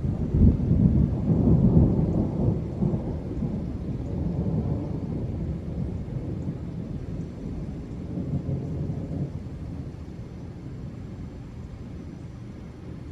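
A thunderstorm with a long roll of thunder, loudest in the first two or three seconds, then fading away over about ten seconds.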